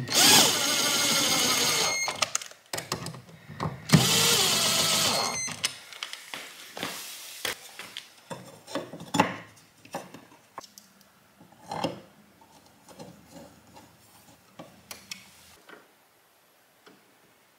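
Cordless drill driving the mounting screws of a 240-volt receptacle into its metal wall box: two runs of steady motor whine, the first about two seconds long, the second about a second and a half ending some five seconds in. Then come scattered clicks and knocks of handling as the metal cover plate is fitted.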